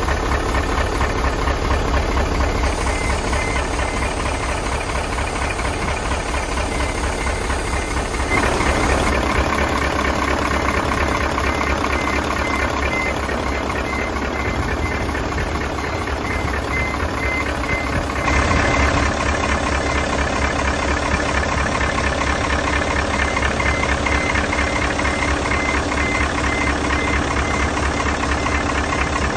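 Mitsubishi Fuso 8DC11 V8 diesel engine idling steadily with a fast, even clatter. It gets a little louder about eight seconds in and again about eighteen seconds in.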